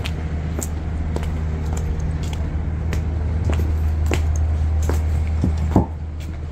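Footsteps on a tiled walkway, about one step every 0.6 s, with one louder knock about six seconds in, over a steady low vehicle rumble.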